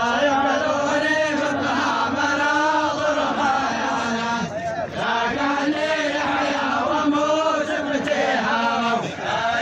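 Group of men chanting a Bedouin folk song together, sustained melodic lines over a lower held tone, with brief breaks between phrases.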